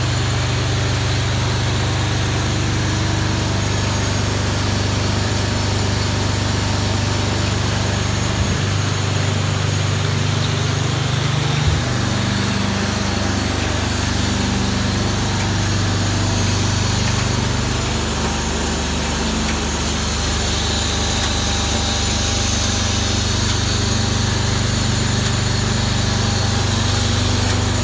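Rockcreter C70-A shotcrete machine running steadily with a low mechanical hum, its note shifting briefly a couple of times.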